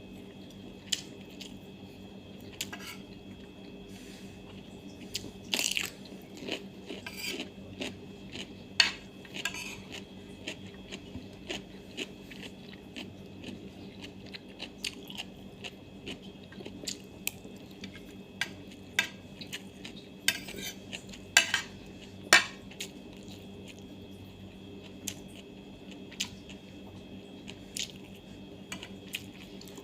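Eating at a table: a spoon or fork clinks and scrapes against a plate in scattered single clicks, mixed with crunchy bites and chewing of fresh cucumber. A steady hum runs underneath.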